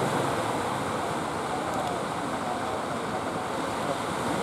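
Steady rush of surf breaking on the beach, mixed with the low running of motor fishing boats' engines as the boats come in through the breakers.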